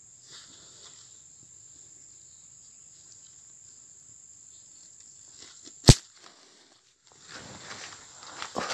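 Steady high-pitched drone of insects in the forest, with one sharp click about six seconds in, the loudest sound. The drone breaks off briefly after the click, and then comes the rustling and crunching of leaves and undergrowth as someone pushes through it.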